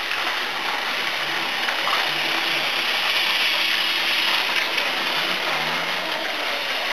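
Battery-powered Plarail toy train, a Percy locomotive pulling a wagon, whirring steadily along plastic track. It gets a little louder as it passes close by, about three to four seconds in.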